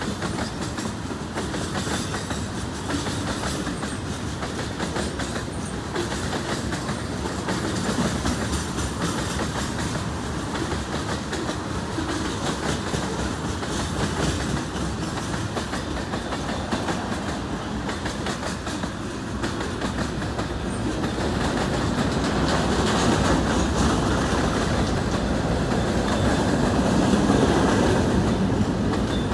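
Freight train cars rolling past: steady noise of steel wheels on rail with rapid clicking, growing a little louder in the last several seconds as tank cars give way to a gondola and covered hoppers.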